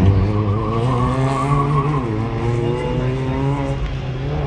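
Toyota Etios race car's engine revving as it laps the circuit, its pitch dipping about two seconds in and climbing again, over a steady low hum.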